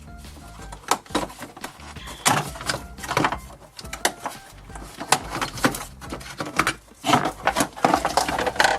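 Handling noise from taking apart a plastic electronic keyboard: irregular clicks, knocks and scraping, busiest in the last two seconds.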